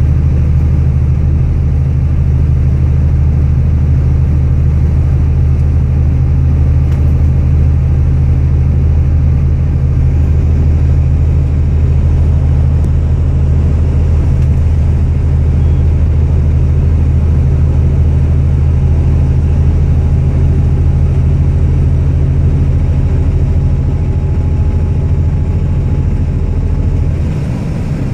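Steady low drone of a car driving at road speed, the mixed engine and tyre rumble heard from a moving vehicle. It eases slightly near the end.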